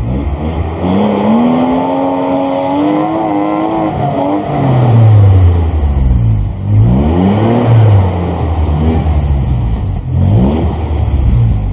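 Off-road 4x4 SUV's engine revving hard as it fights its way through deep mud with its wheels spinning. The revs climb over the first few seconds, then drop and rise again twice.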